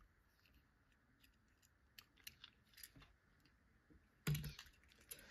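Near silence with a few faint clicks of die-cast toy cars being handled and set down, and one brief louder knock a little past four seconds in.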